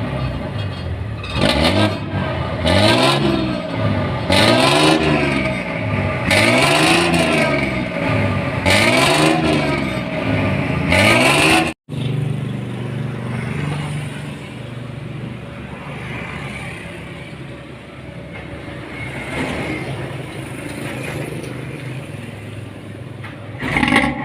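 Bus diesel engine with a 'ngorok' (snoring) aftermarket exhaust, revved in about six blips roughly two seconds apart, each rising and falling in pitch. After a cut about halfway through, the engine runs steadily at a lower level, with a brief louder burst at the very end.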